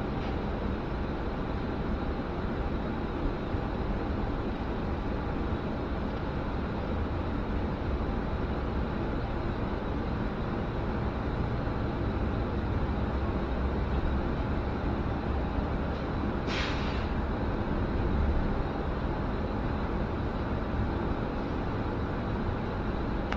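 City transit bus running, heard from inside the passenger cabin as a steady low rumble. About two-thirds of the way through there is a short burst of compressed-air hiss.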